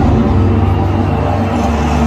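Concert intro music over a stadium sound system: loud, low droning tones held under a noisy wash.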